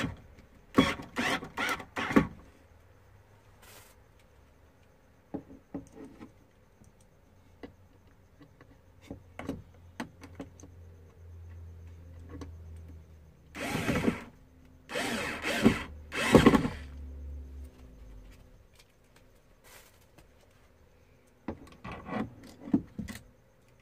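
Cordless drill run in short bursts into wood at a concealed cabinet hinge's screw holes. The bursts come in three groups: near the start, in the middle and near the end.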